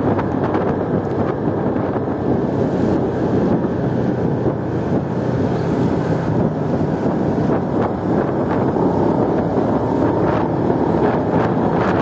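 Wind buffeting the microphone of a phone carried on a moving motorcycle, a steady rush of wind noise with the motorcycle's engine running underneath.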